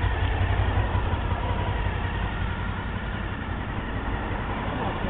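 Supercharged Honda VFR800's V4 engine idling steadily, freshly started on the first try.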